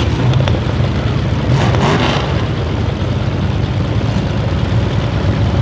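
Several demolition derby cars' engines running together in a loud, steady, low rumble, with one engine revving briefly about two seconds in.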